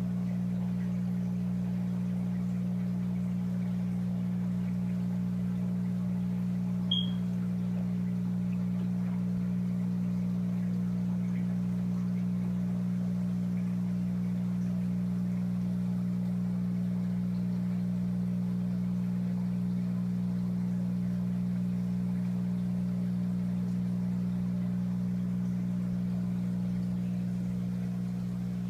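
Steady low electrical hum of an aquarium pump running. There is one brief high click about seven seconds in.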